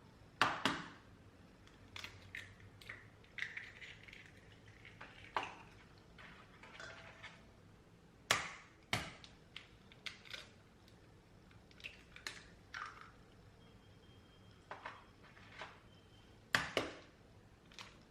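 Kitchen handling sounds: scattered clicks, knocks and light clatter of utensils and dishes, with louder double knocks near the start, about halfway through and near the end.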